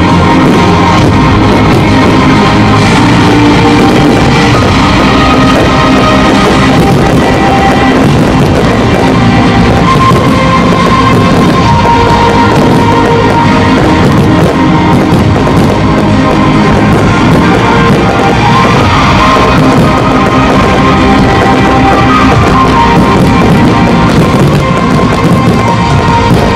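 Loud rock music with drums and guitar, held at an even level throughout.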